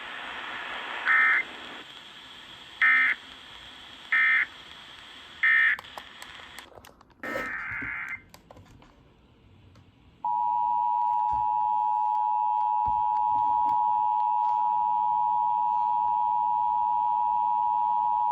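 Emergency Alert System broadcast tones: four short bursts of SAME digital data warble, the end-of-message code that closes the alert, then a brief noisy blip. About ten seconds in, the steady two-tone EAS attention signal starts and holds.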